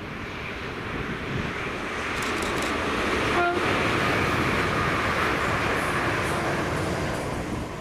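ScotRail Class 380 electric multiple unit passing at speed: wheel and rail noise builds to a peak in the middle and then eases off. A short tone sounds about three and a half seconds in.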